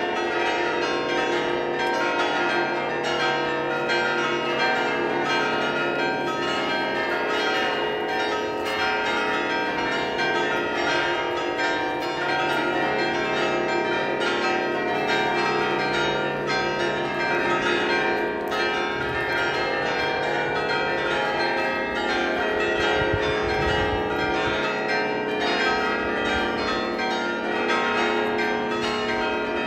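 A large set of fixed, tuned church bells ringing a festive peal: many bells struck in quick succession, their tones overlapping into a continuous, dense chime.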